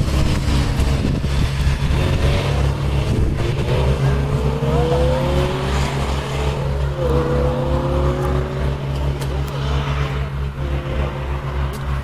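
Lamborghini Gallardo LP560-4's V10 accelerating hard, its note climbing through the revs, dropping at an upshift about seven seconds in and climbing again. A steady low drone runs underneath.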